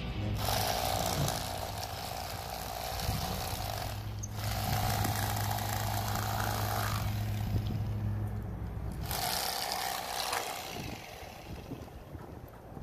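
Electric fillet knife buzzing as it cuts a triggerfish fillet, in three runs of a few seconds with short pauses between.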